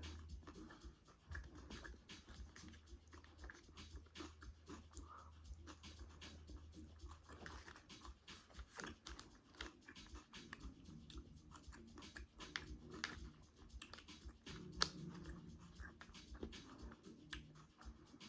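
Faint eating sounds of fried chicken wings being chewed: irregular small clicks and crackles, with one sharper click about fifteen seconds in.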